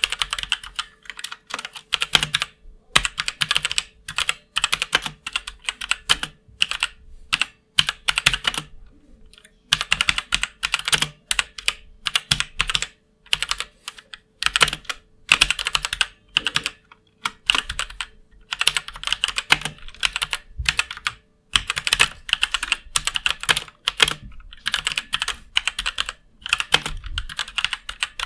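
Fast typing on a MeToo Zero mechanical keyboard with Outemu red linear switches: rapid runs of keystrokes in bursts, broken by a couple of short pauses.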